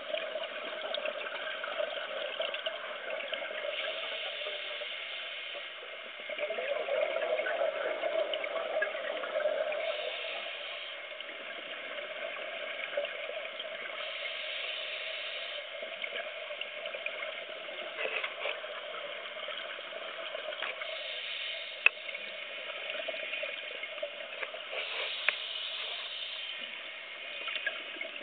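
Underwater ambience heard through a dive camera housing: a scuba diver's exhaled regulator bubbles gurgling in bursts every few seconds over a steady hum, with a couple of sharp clicks.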